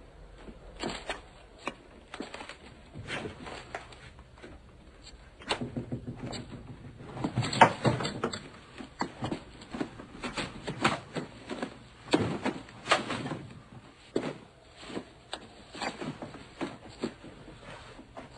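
Boxes and stored belongings being rummaged through and shifted by hand: a run of irregular knocks, bumps and rustles, busiest a little under halfway through.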